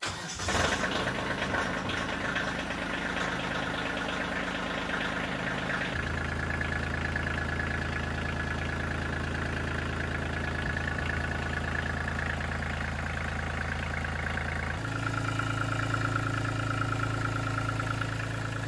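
Kubota compact tractor's diesel engine starting and then running at idle. Its tone shifts abruptly twice.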